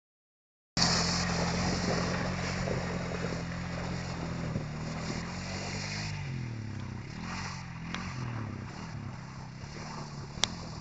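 Honda TRX420 Rancher ATV's single-cylinder engine pulling away through shallow water and slushy ice, with the tyres splashing. After a few seconds the engine pitch rises and falls again and again as the throttle is worked, and the sound grows fainter as the quad moves off; a single sharp click comes near the end.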